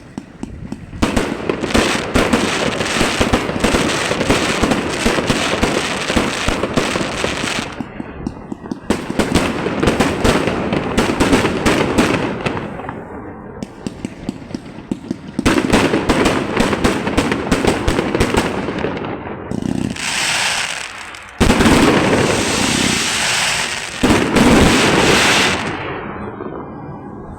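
Fireworks display: dense volleys of rapid bangs and crackling in four long runs broken by short lulls, with a stretch of hissing about two-thirds of the way through.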